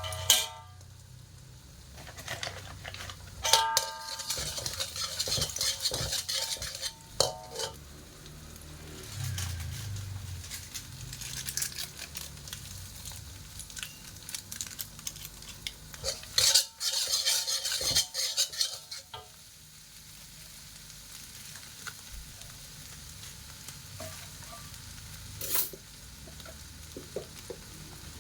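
Stir-frying in a metal pan: a metal spatula clinks and scrapes against the pan, and the oil sizzles in bursts, loudest twice, for a few seconds each time.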